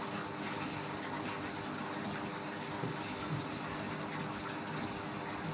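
Steady background hiss with a faint low hum, unchanging and without distinct events.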